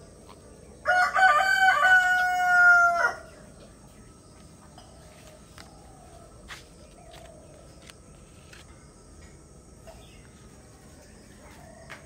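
A rooster crows once: a single long call of a bit over two seconds, starting about a second in and sagging in pitch at the end.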